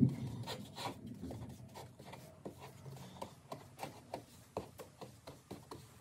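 Wide bristle paintbrush spreading Titebond II wood glue across the face of a wooden 2x4, a run of short, soft brushing strokes over the wood.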